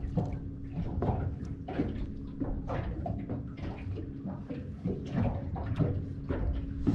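Water slapping and lapping against a Stabicraft's aluminium hull, with irregular knocks and rattles from tackle being handled. A faint steady hum runs underneath.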